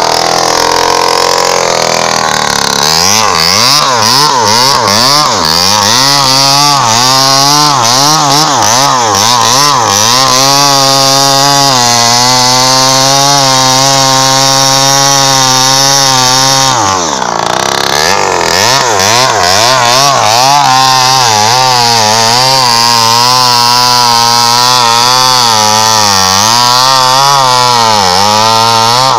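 Two-stroke Falcon chainsaw cutting into a teak trunk, its engine pitch rising and falling as it bogs under load in the cut. About 17 seconds in the engine drops away briefly, then picks up again.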